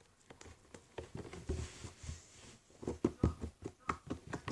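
Slime being squished and stretched by hand, giving a string of quick clicks and small air-bubble pops that get busier from about three seconds in.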